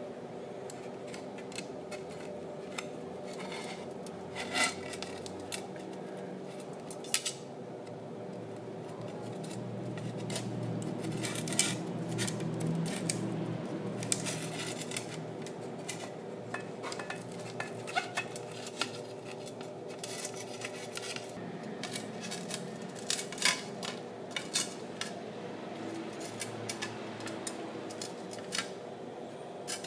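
Glass plates and a steel dish being handled, giving scattered light clinks and taps over a steady hum.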